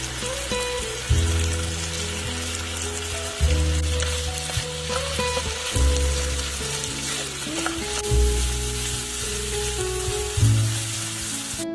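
Bread cone samosas frying in hot oil: a steady, dense sizzle. Background music with a slow bass line plays underneath.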